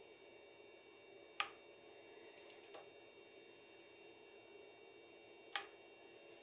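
Two sharp snaps of a mechanical pencil's lead breaking against a plexiglass plate, about four seconds apart, with a few faint ticks between them, over a low steady hum. These pencil lead breaks serve as artificial acoustic emission sources for testing sensor source location.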